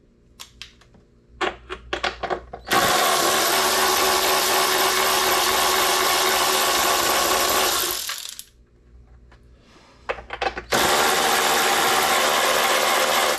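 Cordless power ratchet running in two steady bursts, about five and a half seconds and then nearly three, as it backs nuts off the lower-fairing mounting. A few light clicks of handling the tool come before the first run.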